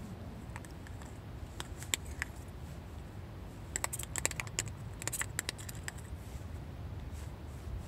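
Small, sharp clicks and taps of a metal spoon and chopsticks handling food on a camp table: a couple of ticks about two seconds in, then a quick cluster as the spoon scoops mayonnaise out of a small red lidded pot. A low steady background rumble runs underneath.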